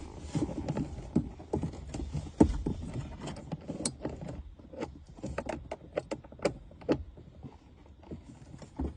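Irregular clicks, taps and small rattles of hand work on car parts, as the cleaned air-conditioning blower fan and its fittings are put back in place.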